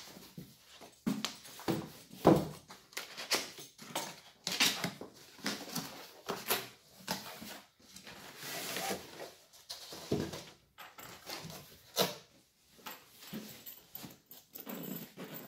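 A cardboard box being cut open and unpacked: a utility knife slitting the tape, then cardboard flaps rustling and scraping, with irregular knocks as the fabric carry case is pulled out and set on a wooden bench.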